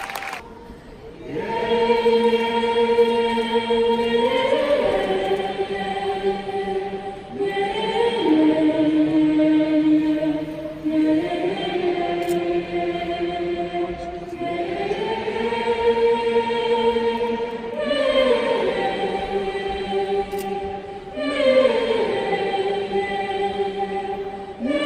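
A woman singing a slow song into a microphone: long held notes of a few seconds each, with short breaks between phrases.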